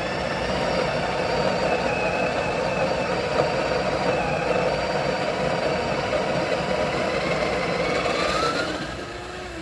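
Espresso machine's built-in coffee grinder grinding a dose of whole beans into the portafilter, a steady grinding whir. Near the end a rising whine appears and the sound then drops away.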